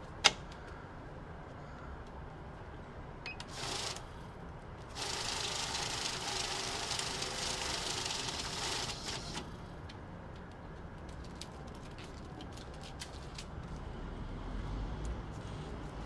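Safescan banknote counter running a stack of paper bills through its feed: a short burst, then a steady rapid riffling whir for about four seconds as the notes are counted. A sharp click just after the start is the loudest sound, and light paper and handling clicks follow the count.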